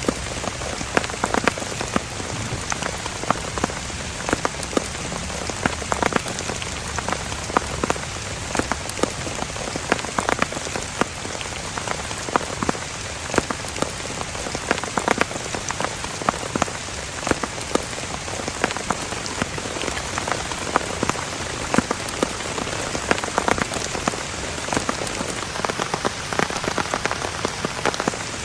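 Heavy, steady rain falling, with many sharp individual drops striking a surface close by.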